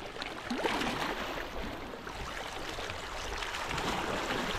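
Water lapping and sloshing steadily around a small fishing boat.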